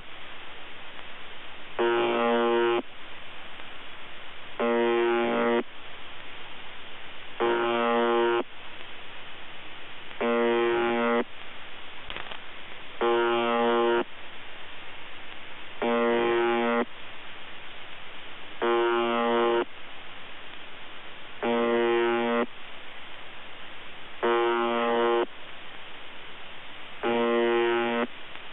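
UVB-76 "The Buzzer" shortwave station on 4625 kHz, heard through a software-defined radio receiver: a harsh, buzzy tone about a second long, repeating roughly every three seconds, with radio hiss between the buzzes. The buzz sounds a bit broken.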